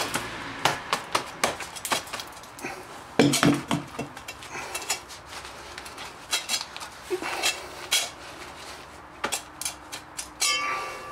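Irregular metallic clinks and knocks as a 4-inch diamond core bit is handled and the cut concrete block core is worked out of it, with a louder cluster of knocks about three seconds in.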